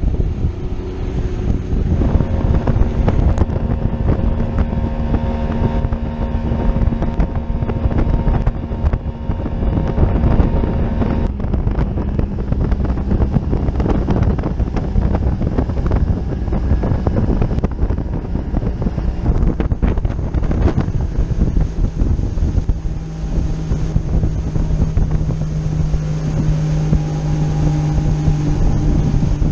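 Mercury two-stroke outboard running under way, the boat planing, with wind buffeting the microphone and water rushing along the hull. The engine note steps down to a lower pitch about a third of the way in and again near the last quarter.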